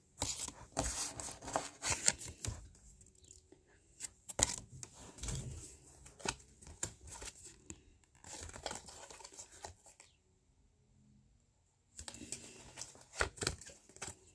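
Paper trading-card code cards handled close to the microphone: irregular rustling, crinkling and scraping as the cards are shuffled and held up one by one, with a pause of near silence about ten seconds in.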